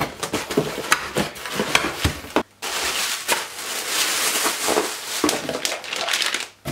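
Packaging being handled and opened, with crinkling and rustling full of sharp clicks and knocks. It breaks off briefly about two and a half seconds in.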